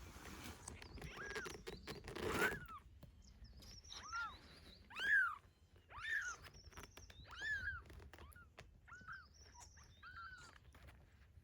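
A kitten meowing repeatedly, about eight short high rising-and-falling meows spaced a second or so apart, with rustling near the start and again about two seconds in.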